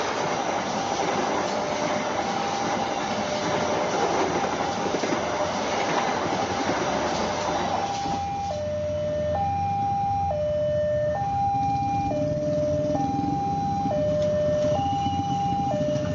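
Railway level-crossing warning alarm sounding its two-tone signal, alternating high and low with each tone lasting just under a second. For the first half it is partly covered by the rushing noise of a passenger train passing at speed. That noise fades about halfway through, leaving the alarm clear until it stops near the end.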